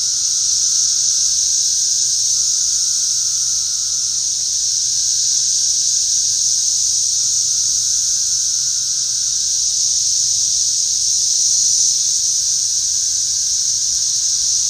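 Chorus of periodical cicadas: a loud, steady, high-pitched drone with no breaks.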